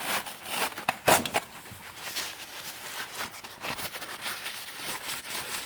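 Light clicks, knocks and rustling of plastic hose parts being handled on a workbench, with a sharper knock about a second in.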